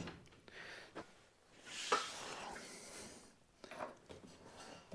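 Faint handling sounds as a person moves in and kneels at a truck frame: a light knock about a second in, a short scraping rustle around two seconds, and a few small clicks near the end.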